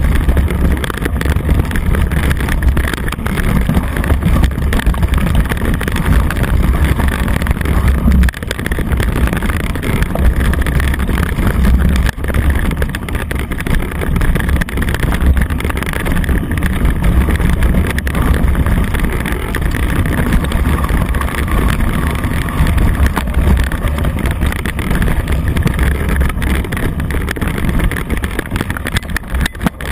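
Steady wind buffeting on the camera microphone and tyre rumble from a knobby-tyred bike rolling fast over a leaf-covered dirt trail, a continuous loud rumble with rattle and no pauses.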